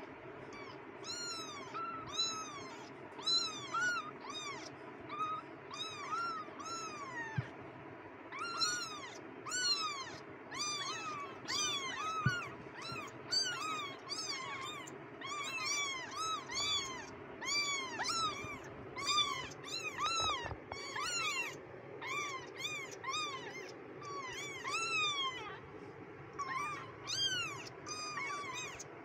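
A litter of very young kittens mewing constantly: short, high-pitched cries that each rise and fall in pitch, several a second, from several kittens at once, with a faint steady hum underneath.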